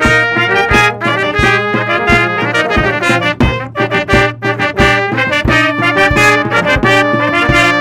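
A brass ensemble of trumpets, tuba and trombone playing a tune together, backed by drum kit and timpani with steady drum hits.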